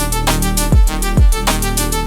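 Electronic chill music: deep kick-drum beats under sustained, layered melodic tones.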